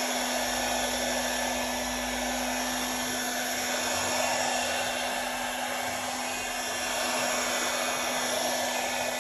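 Electric heat gun blowing steadily, a constant rush of air with a steady hum under it, heating a bitumen-based sound-deadening sheet so it bonds.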